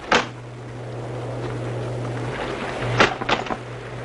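Small motorboat's engine idling with a low steady hum, with a sharp knock at the start and three quick knocks about three seconds in.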